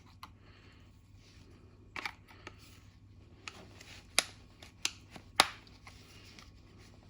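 A few sharp clicks and knocks of a screwdriver against hard plastic, working a car's plastic charging-socket cover off its clips. The loudest click comes about five and a half seconds in.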